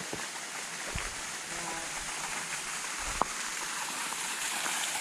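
Steady rush of running water from a small waterfall, growing a little louder toward the end, with two sharp thumps about one and three seconds in.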